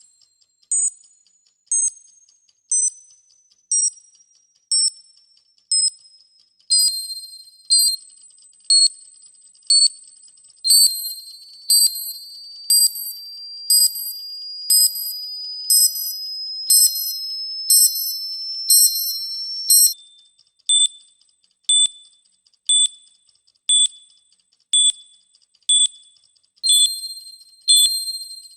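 Countdown clock sound effect: high-pitched electronic beeps, about one a second. A faint tone under them falls in pitch over the first few seconds, and another rises steadily through the middle. Near the two-thirds point the beeps change to a lower, sharper pitch.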